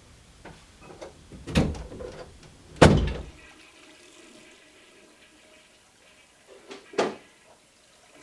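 A few sharp knocks or thumps, the loudest about three seconds in, over a low rumble that cuts off just after it.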